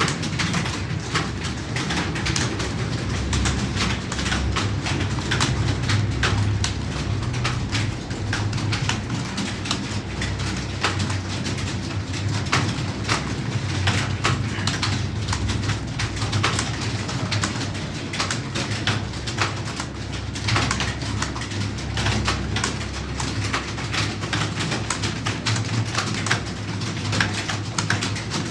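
Fast typing on a computer keyboard: a continuous, irregular stream of key clicks over a steady low hum.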